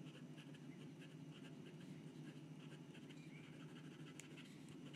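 Fountain pen's steel nib scratching faintly across lined paper in a run of short, quick strokes, over a low, steady hum.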